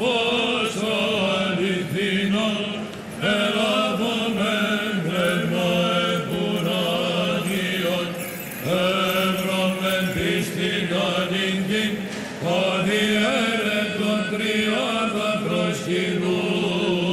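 Greek Orthodox Byzantine chant: a hymn sung in long phrases with short breaks between, over a steady low held note (the ison drone).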